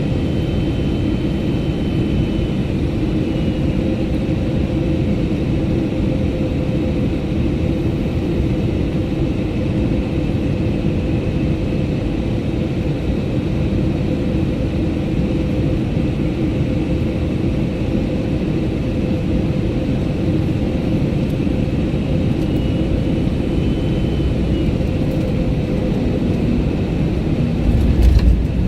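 Steady cabin rumble of an Airbus A321neo in flight, engine and airflow noise with a thin steady whine above it. Just before the end a short run of heavy low thuds and sharp clicks breaks in.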